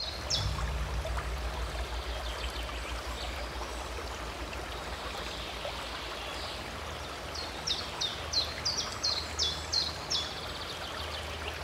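Nature ambience of steadily flowing water with a low rumble underneath. A bird gives one short high chirp just after the start and a quick run of about eight more, roughly three a second, in the second half.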